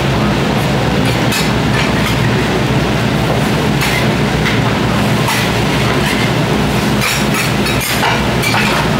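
Metal spatulas scraping and clacking on a teppan griddle as okonomiyaki are pressed and turned, with a handful of sharp clacks spread through and a quick cluster near the end. Under them runs a steady rumbling hiss from the hot griddle and kitchen.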